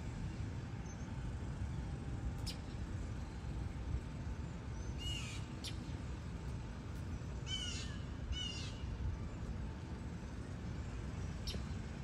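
Three short, raspy bird calls about five, seven and a half and eight and a half seconds in, with a few sharp high chips, over a steady low background rumble.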